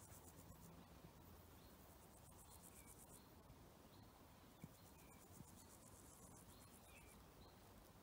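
Faint insects chirring in rapid, pulsing high trills that come and go, with a bird calling short repeated notes about once a second. Two soft ticks come about halfway through.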